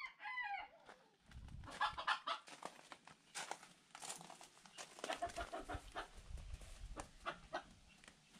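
Chickens clucking and calling, starting with a falling call in the first second, then scattered short clucks. Footsteps crunch on gravel and straw underneath.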